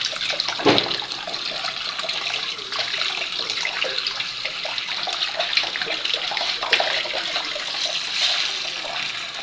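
Water running hard from a tap and splashing steadily, with a brief bump under a second in.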